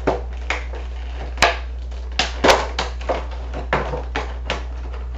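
Action-figure packaging being handled and opened: a run of sharp clicks and crinkles, loudest twice near the middle, over a steady low hum.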